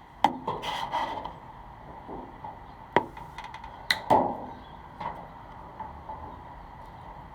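A few sharp plastic clicks and snips with handling rustle in between, as wire cutters cut the small plastic bridges of a white double-tab wire connector; the loudest snaps come about three and four seconds in. A faint steady whine runs underneath.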